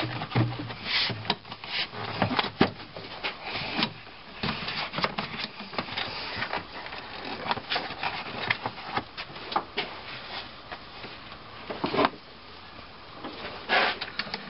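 Plastic engine air intake tube and air box being pushed and worked back into place by hand: rubbing with scattered knocks and clicks, and one louder knock about twelve seconds in.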